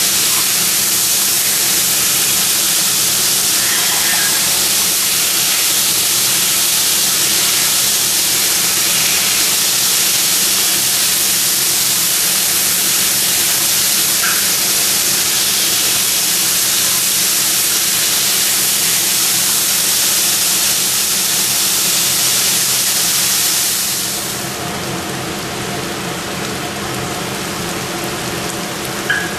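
Food sizzling in hot olive oil in a frying pan, a steady loud hiss. About 24 seconds in the sizzle gets quieter.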